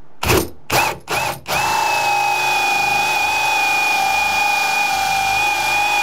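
Cordless drill turning a dull bi-metal hole saw into the wood core of a door: a few short trigger blips, then the drill runs steadily under load from about a second and a half in, with a constant high whine.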